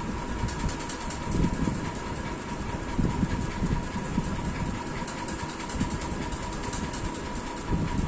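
Electric room fan running steadily: a rumble with a thin, constant whine.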